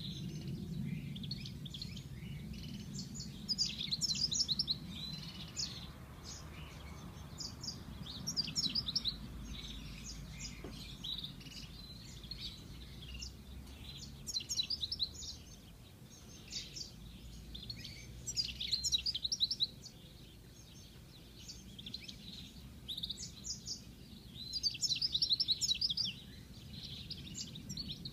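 European goldfinch singing in repeated bursts of rapid, high twittering notes a few seconds apart, over a steady low background hum.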